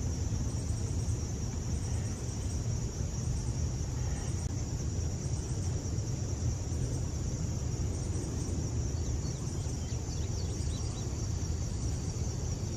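Steady high-pitched chorus of insects, over a low steady rumble.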